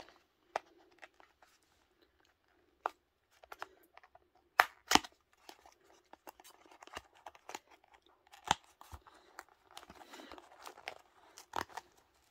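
Thin cardboard gift box being worked open by hand, its folded end tabs pulled apart: scattered sharp clicks and snaps of the card, the two loudest close together about halfway through, with softer papery rustling near the end.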